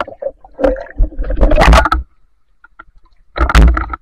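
Water sloshing and splashing against a camera dipping in and out of a shallow river, in irregular loud bursts with a quiet stretch of about a second in the middle.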